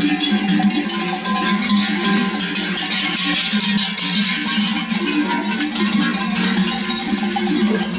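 Many bells worn by a flock of sheep and goats on the move, clanking and ringing in a continuous jumble of overlapping pitches.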